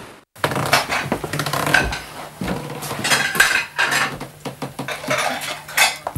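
Irregular clattering and clinking of hard objects being handled, a quick run of knocks and metallic clinks starting just after a brief silence.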